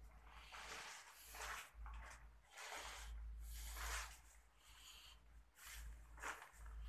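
Faint, irregular rustling and handling noise close to the microphone over a steady low rumble, as a handheld camera is moved.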